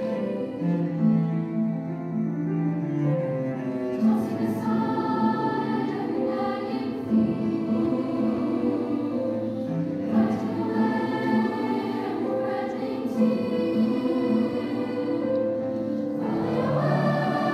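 Mixed-voice youth choir singing in parts, accompanied by cello, with a few sharp percussive accents spaced a few seconds apart.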